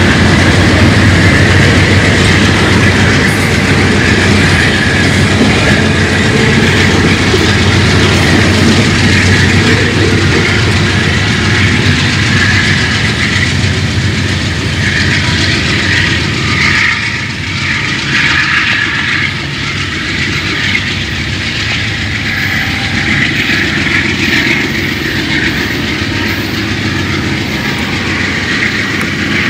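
Train rolling past, its cars' steel wheels running on the rails with a clickety-clack; loud and steady, easing a little after the middle.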